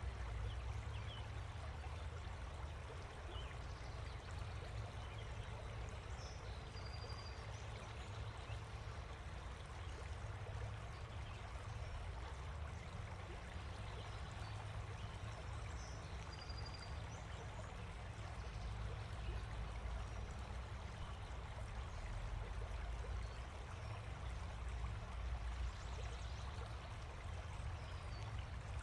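Steady outdoor background noise with a deep rumble, and a couple of faint high chirps.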